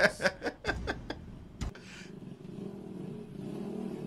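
Brief chuckling at first, then from about two seconds in the steady hum of a small motorbike's engine running.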